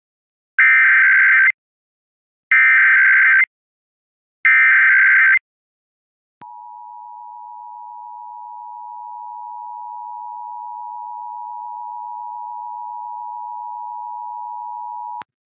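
Emergency Alert System SAME header: three one-second bursts of warbling data tones, about two seconds apart, then the two-tone EAS attention signal, a steady dual tone held for about nine seconds and cut off sharply. Together they open a required monthly test.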